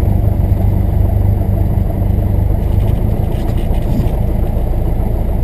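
Cessna 172R's four-cylinder Lycoming IO-360 engine and propeller running steadily at low taxi power, heard inside the cockpit.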